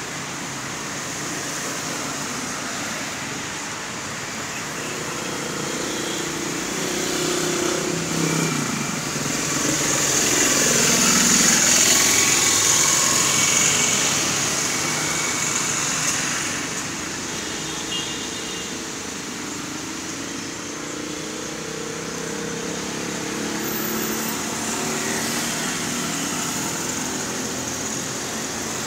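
Road traffic going by, with one car passing close and loudest about halfway through, then fading.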